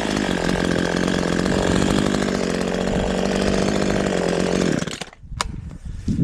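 Chainsaw engine idling steadily after coming off throttle, then cutting off about five seconds in. A sharp click and a soft thump follow.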